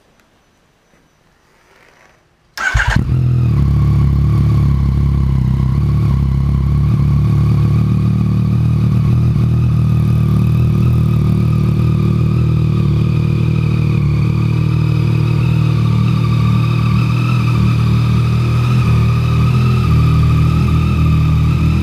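2014 Yamaha FZ-09's inline-three engine starting: a short crank about two and a half seconds in, catching at once and settling into a steady idle.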